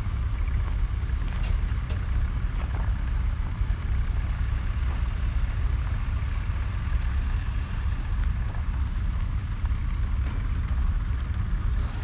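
Wind buffeting the microphone: a steady low rumble with a fainter hiss above it.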